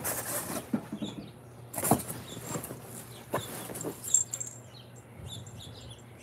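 Faint birds chirping in the background, with a few short knocks and rustles, the loudest about two seconds in and again about four seconds in, over a steady low hum.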